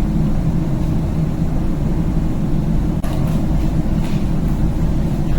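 Steady low rumble of a moving vehicle, with a brief break about three seconds in.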